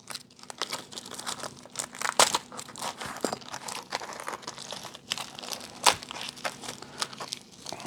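Thick vacuum-sealed plastic packaging crinkling and crackling as it is pried and peeled away from circuit boards, with irregular sharp snaps of the plastic.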